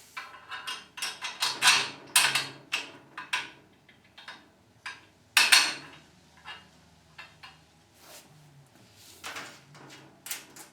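Metal hardware knocking and clinking against the chainsaw mill's frame as a U-bolt is fitted: a quick string of sharp knocks, the loudest about two seconds in and again a little past five seconds, then fewer and fainter.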